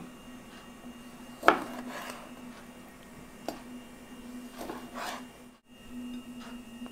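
Kitchen knife halving cherry tomatoes on a plastic cutting board: one sharp knock of the blade on the board about a second and a half in, then a few lighter clicks and cuts.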